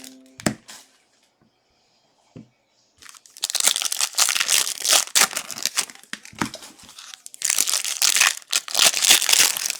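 Plastic football card pack wrappers being torn open and crinkled, in two long bouts of crackling after a near-quiet start with one soft knock.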